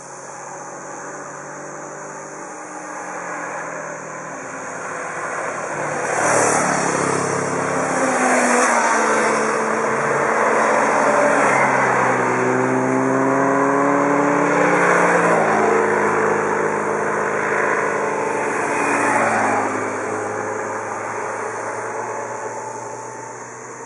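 Several motorcycles passing one after another, their engine notes rising and falling in pitch as each goes by. The sound builds over the first few seconds, stays loud through the passes, and fades away near the end.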